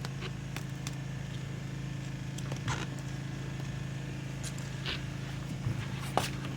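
Steady low hum of an idling engine, with a few faint scrapes and taps now and then.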